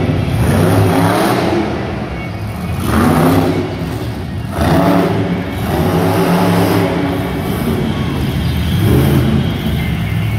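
Monster truck's supercharged V8 engine revving in repeated surges, its pitch climbing and dropping several times as the truck drives and turns on the arena dirt.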